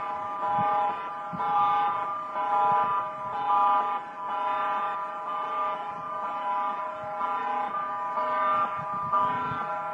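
Several electronic alarms sounding at once. Their steady tones start, stop and change pitch in overlapping cycles.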